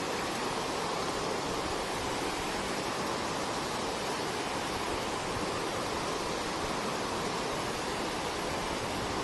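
Steady rush of river water pouring over a weir, an even unbroken roar of falling water.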